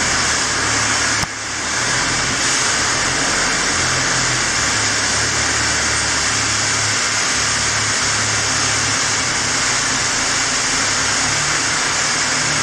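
Alimak raise climber's drive running as the platform climbs the guide rail up the raise: a loud, steady hiss over a wavering low drone, dipping briefly about a second in before settling back.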